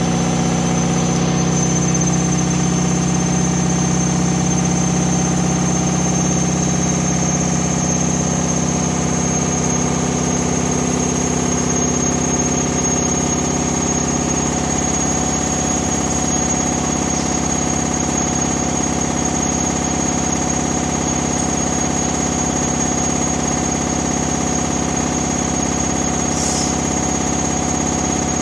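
Hoover Dynamic Next 7 kg washing machine running flat out, most likely in a fast spin: a loud, steady hum and whine with a thin high-pitched tone above it.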